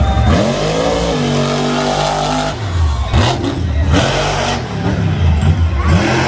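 Monster truck engine revving hard, climbing in pitch and holding at high revs. About halfway it gives way to a couple of loud, noisy surges as the truck runs over the crushed cars, then revs up again near the end.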